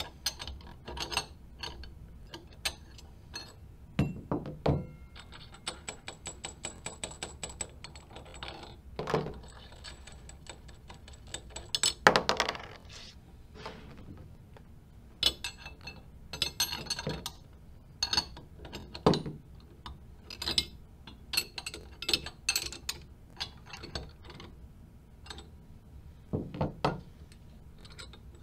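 Steel flange nuts and bolts being loosened with a wrench and taken off by hand: scattered metal clicks and clinks, a run of fast even clicking a few seconds in, and a loud metal clunk near the middle as a part is set down.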